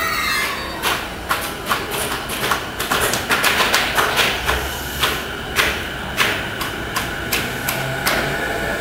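JR East E233-series electric commuter train pulling out of the station, its wheels clacking over rail joints again and again as it gathers speed, over a steady running noise with a faint electric whine.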